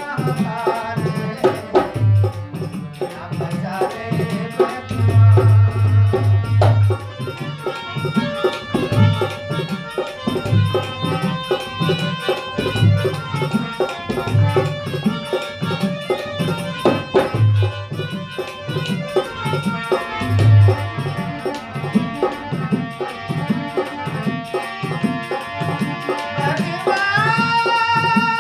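Harmonium playing a bhajan melody over a steady hand-drum beat. Near the end a singing voice comes in, sliding up into a long held note.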